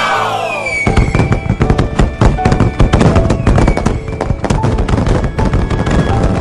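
Cartoon fireworks sound effects: a cascade of falling whistles fades out about a second in, then dense, rapid crackling and popping follows, over background music.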